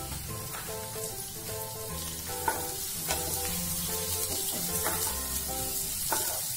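Sliced onions sizzling in hot oil with cumin seeds in a nonstick pan, stirred with a wooden spatula, with a few scraping strokes across the pan. Background music plays underneath.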